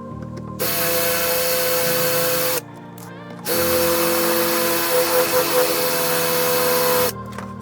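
Electric drill drilling into a steering wheel frame, run in two bursts of about two and three and a half seconds with a short stop between. The motor whines at a steady pitch.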